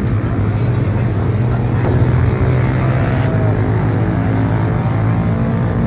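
A steady engine drone with a strong low hum that stays at the same pitch throughout, typical of race motorcycles running at a circuit.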